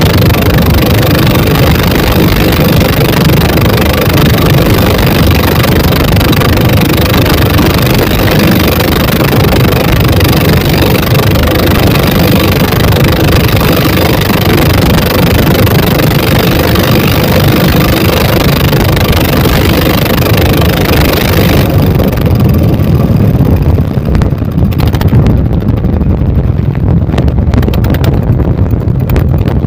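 Twin 24 HP dompeng single-cylinder diesel engines running hard, pushing a wooden boat at speed, with wind and water hiss over the engines. About 22 seconds in, the high hiss drops away sharply while the engines keep running loudly.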